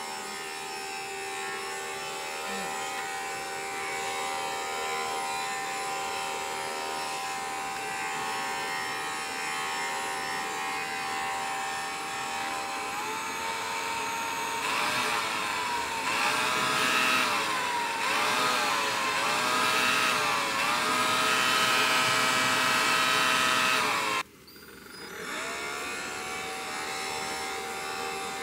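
Cordless handheld electric blower running with a steady motor whine. From about halfway its pitch rises and falls several times as the speed changes. It cuts out abruptly about three-quarters of the way through and spins back up a second later.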